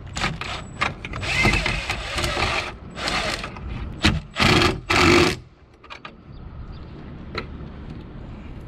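Cordless drill running in several short bursts as it drives a screw to fasten a small L bracket, stopping about five and a half seconds in.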